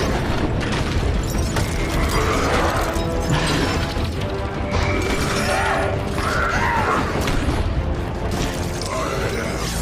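Loud music mixed with mechanical clanking and whooshing sound effects, with sweeping synth-like tones rising and falling.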